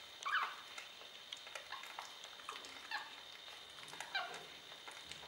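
Newborn puppies squeaking and mewing as they nurse: a few short high cries that drop in pitch, loudest near the start and about four seconds in, with faint scattered clicks.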